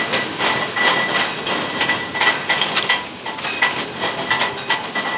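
Date-sorting conveyor line running, a busy clatter of irregular clicks and knocks with a faint high tone that pulses a few times a second.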